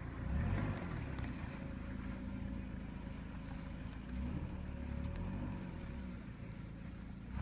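2000 Dodge Neon's four-cylinder engine running off-road, its revs rising and falling as the car is worked over rough ground.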